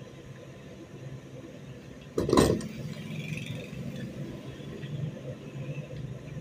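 Metal rifle parts being handled and fitted together by hand, with one loud clack a little over two seconds in and smaller clinks after it, over a steady low hum.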